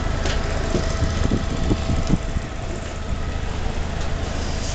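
A houseboat's engine running steadily under way, a continuous low hum with a faint steady whine above it. A few dull thumps come between about one and two seconds in.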